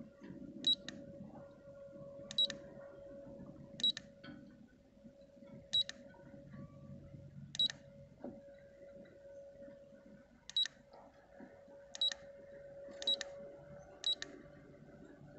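Keypad of a Raymarine ST6002 SmartPilot autopilot control head giving a short high beep with each key press, nine presses at uneven intervals of one to three seconds as its display pages are stepped through. A faint steady hum runs underneath.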